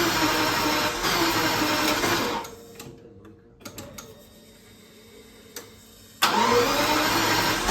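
Jaguar XJ-S engine running with the misfire it has been giving, then dying away about two and a half seconds in. After a few seconds of quiet with a couple of faint clicks, it starts suddenly again near the end and picks up.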